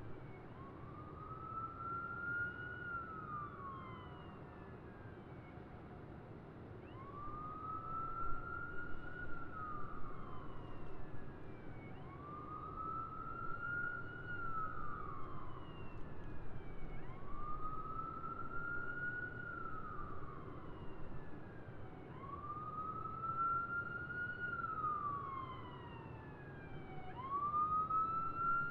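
Emergency vehicle siren in a slow wail, rising, holding and falling about once every five seconds, over a steady low rumble of city traffic.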